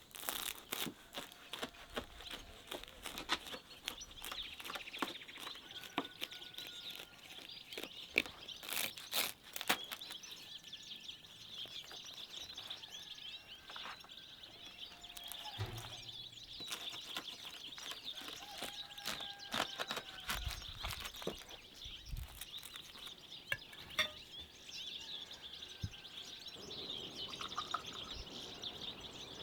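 Birds chirping and chickens clucking, over a steady high chirring background, with scattered sharp clicks and knocks throughout.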